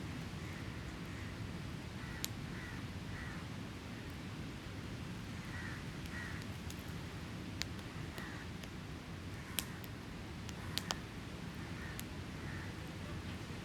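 Campfire crackling with a handful of sharp pops, over a steady low rumble of surf. Crows caw repeatedly in the background.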